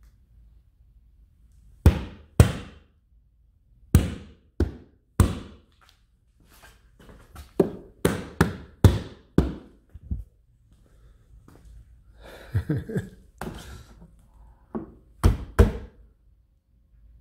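A hand pounding on a Tesla Model 3's side window: a series of sharp knocks in irregular bunches of two to six, with short pauses between the bunches.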